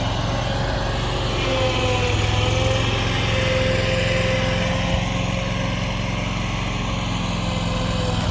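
Small engine of outdoor power equipment running steadily, with no change in speed.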